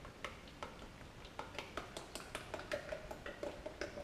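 Thick hydraulic oil glugging from a drum through a funnel into a mini excavator's hydraulic tank: irregular pops and gurgles as displaced air vents back out through the return filter, with a wavering bubbling tone from about halfway.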